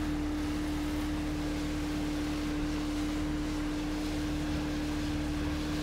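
Small boat's engine running at a steady throttle: an even, one-note drone with a fainter low hum beneath it.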